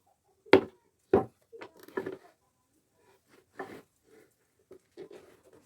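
Several sharp knocks and clatters at irregular intervals, the loudest about half a second and a second in, with no machine running.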